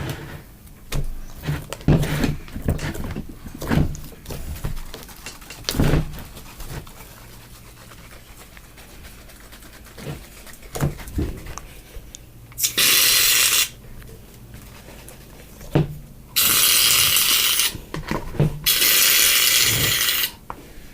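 Light knocks and clatter of slime-making utensils and containers, then three hissing aerosol sprays of about a second or more each, the last two close together. These are typical of shaving foam being sprayed in to make the slime fluffy.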